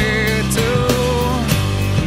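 Rock song with guitar and a steady drum beat, laid over the footage as background music.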